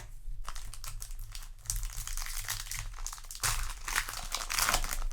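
Plastic wrapper of a Yu-Gi-Oh! booster pack crinkling as it is handled and opened, in irregular crackles that grow louder about two seconds in and again from about three and a half seconds to the end.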